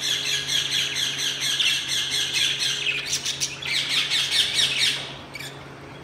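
A flock of caged budgerigars chattering, a dense run of high chirps and squawks that dies down about five seconds in.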